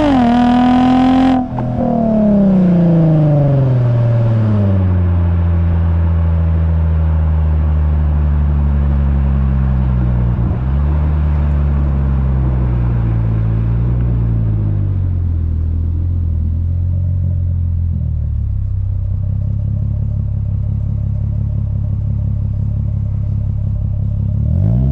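Exhaust note of a Lexus IS350's 3.5-litre V6 through an HKS Hi Power catback with an Invidia midpipe, heard right at the muffler tip while driving. High revs cut off abruptly a little over a second in, then the pitch falls and settles into a steady low drone at cruise, and the revs climb again near the end.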